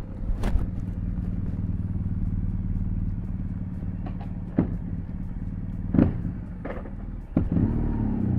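BMW R1200 GS boxer-twin engine running under way, with several sharp pops from the exhaust pipe. The engine note swells and falls back near the end.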